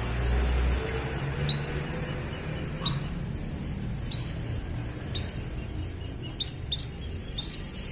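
Domestic canary giving short, sharp chirps, each a quick upward sweep, about one a second and coming quicker near the end, over a low background hum.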